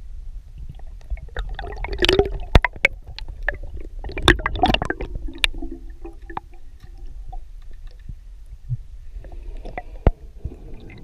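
Underwater sound picked up by a submerged camera: a steady low rumble of water with clusters of sharp clicks, knocks and crackles about two seconds and four to five seconds in, from a diver handling a freshly speared tilapia. There is a faint hum midway and again near the end.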